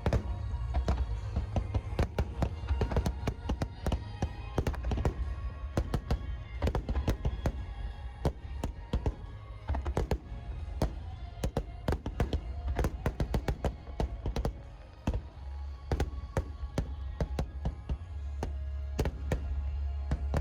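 Large fireworks display bursting in rapid succession: many sharp bangs and crackles over a deep low rumble, with music playing along, thinning briefly about three-quarters of the way through.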